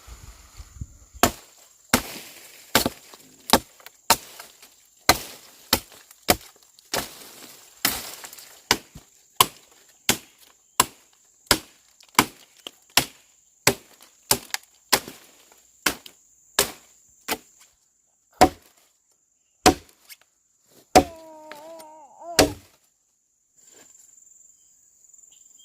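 Wood being chopped with a blade, with steady, evenly paced strokes about every 0.7 seconds that stop about 22 seconds in. A brief wavering pitched tone rises over the last few strokes.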